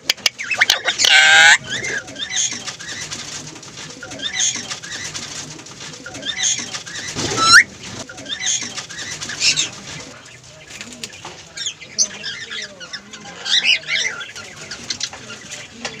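A green Psittacula parakeet calling and chattering: a run of short shrill squawks and chirps with sweeping pitch, mixed with mumbled speech-like attempts. Loud calls come about a second in and again around seven and a half seconds.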